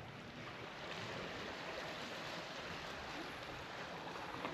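Sea surf washing in, a steady rushing hiss that swells slightly about a second in.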